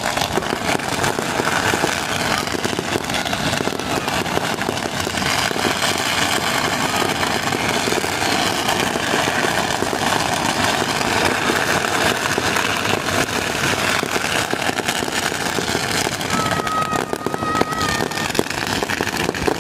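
Strings of firecrackers going off in a continuous dense crackle. A short high steady tone sounds over it near the end.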